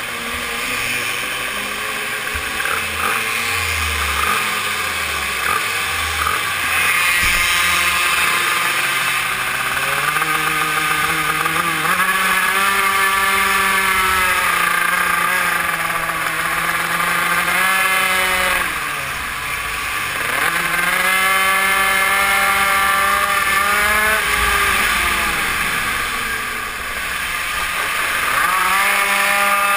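Onboard sound of a GRC RR super mini moto's small engine at race pace. It is uneven and lower at first, then climbs, with the revs dropping off and rising again twice as it goes through corners.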